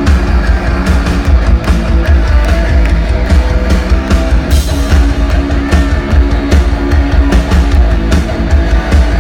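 Live punk rock band playing loud, with distorted guitar, a driving drum-kit beat and heavy bass. No vocals are heard.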